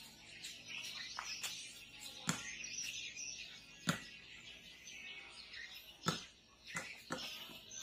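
A small ball bouncing on a concrete yard: a handful of separate thuds at irregular intervals.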